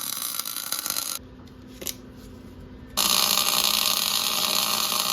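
Welding arc crackling and hissing in two bursts, the first stopping about a second in and the second starting about three seconds in: the bent strut being tack-welded to the steel workbench.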